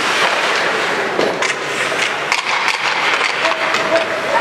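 Ice hockey play: skates scraping the ice and sticks clacking, with frequent sharp knocks of stick on puck.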